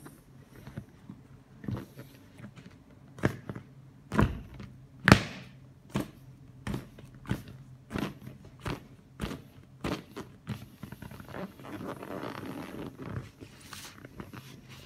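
John Sports plastic soccer ball being squashed under a bare foot as it deflates: a series of sharp clicks and thunks as the plastic shell buckles, roughly two a second, the loudest about five seconds in. Near the end comes a longer, softer rustling stretch.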